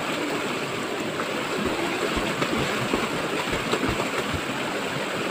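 Fast river water rushing over rocks in a steady, loud wash, the current running strong. A few dull low thumps come in around the middle.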